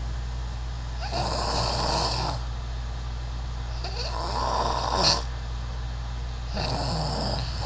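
A person snoring: three snores about a second long, roughly two and a half seconds apart. The second is the loudest and ends sharply.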